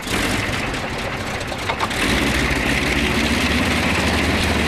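Gloster Gladiator's supercharged Bristol Mercury nine-cylinder radial engine running on the ground, propeller turning, as it warms up before a power run. It grows louder about two seconds in and then holds steady.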